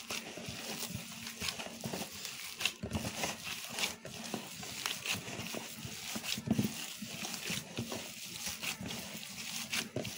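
A gloved hand kneading and squeezing raw minced chicken mixed with mashed potato and spices in a ceramic bowl, giving irregular short squishing and glove-handling noises. A faint steady hum runs underneath.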